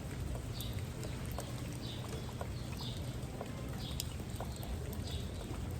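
Steady rain with scattered drop ticks over a low rumble. A short high sound, likely from an animal, recurs about once a second.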